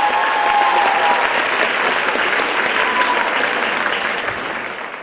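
Audience applauding as the music ends, with the last note of the music dying away in the first second. The applause fades out near the end.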